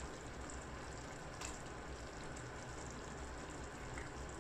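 Tomato-onion masala sizzling softly in a clay pot over a gas flame, a steady low frying hiss, with a faint tap about a second and a half in as pieces of drumstick and brinjal are dropped in.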